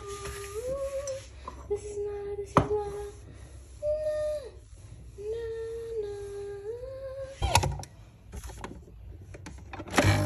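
A woman humming a tune, a few held notes stepping up and down, with a couple of sharp knocks in between.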